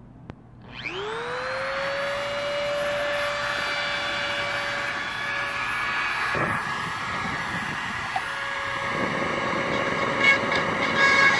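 Dremel MultiPro rotary tool switched on about a second in: its motor whines up in pitch and settles into a steady high whine. Near the end the sound turns rougher as the bit grinds against the metal fitting on the knife handle.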